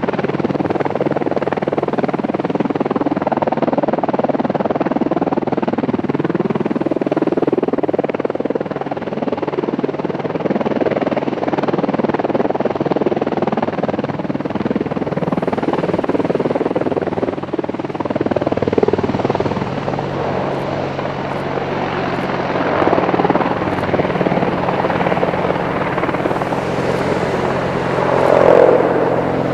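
AH-64 Apache attack helicopter hovering low and then moving off: steady loud noise from its rotors and twin turboshaft engines, swelling briefly near the end.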